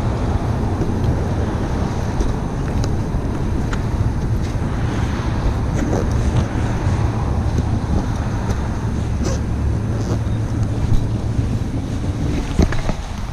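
Wind rushing and buffeting over a recorder on the seat of a moving BMW F800ST motorcycle, with the engine's steady low drone underneath. Heavy, unbroken rumble throughout, the sign of a microphone left out in the wind.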